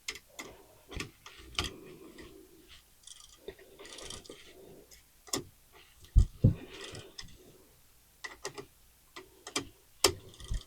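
Irregular small clicks and taps of a light switch and its wires being handled and fastened to the terminals, with a brief rustle and a couple of louder knocks about six seconds in and again near the end.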